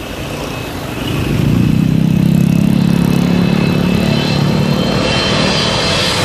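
Twin-engine widebody airliner on short final approach, passing low overhead. A loud jet rumble swells about a second in, and a high engine whine grows stronger toward the end. Road traffic runs underneath.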